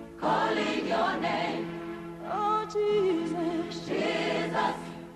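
Gospel music: a voice sings long, wavering notes over a steady sustained accompaniment.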